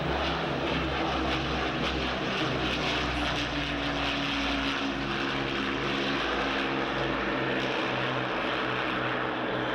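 Piston-engined Second World War propeller aircraft flying a low display pass, its engines making a steady drone. The pitch of the drone shifts a little midway as the aircraft goes by.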